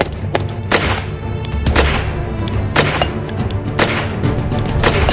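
Background music with a steady beat, over several sharp gunshots about a second apart from a Grand Power Stribog SP10A3, a 10mm roller-delayed blowback carbine.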